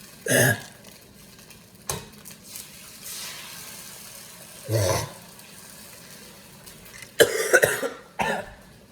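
A person coughing several times: once about half a second in, again about five seconds in, and a short run of coughs near the end. A sharp knock comes about two seconds in.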